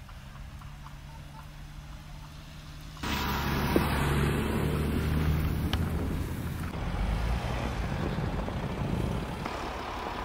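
An SUV pulling a horse trailer drives past: at first a steady low engine hum as it approaches, then the engine and tyre noise become much louder and denser about three seconds in as it passes close, settling into a steadier running sound afterwards.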